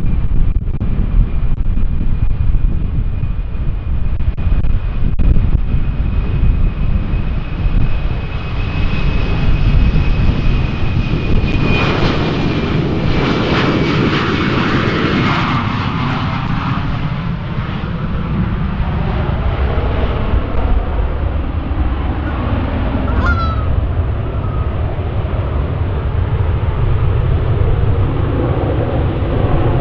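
Airliner engines passing close: a steady high whine builds to a loud rush of engine noise about halfway through, then the whine drops in pitch and the sound settles to a low rumble.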